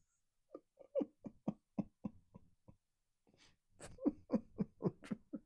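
A person laughing in quick ha-ha pulses, about four a second, with a short pause about three seconds in before a second run of laughter.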